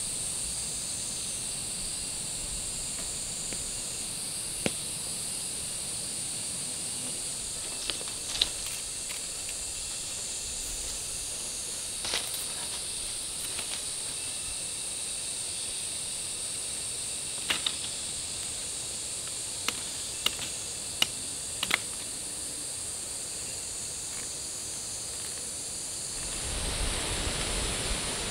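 Steady high-pitched outdoor hiss with about a dozen sharp snaps and clicks scattered through it; a low rushing noise swells near the end.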